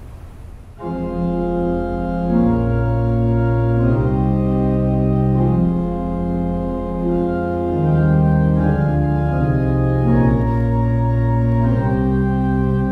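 Church organ playing a slow prelude: held chords on the manuals over sustained pedal bass notes, the chords changing about every second. The playing begins about a second in.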